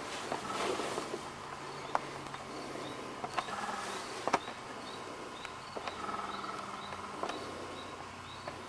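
Quiet ambience with a steady low hum, a few sharp clicks and faint short high chirps repeating in the second half, typical of a camcorder left running while waiting on a hunt.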